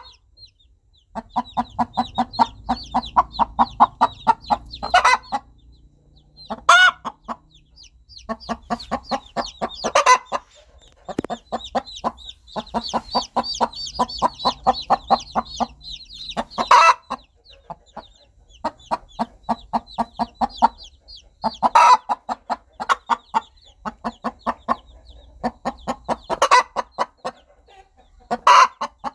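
Mother hen clucking to call her baby chicks, in rapid runs of a few seconds each, broken by short pauses and several louder single calls. The chicks peep high over it.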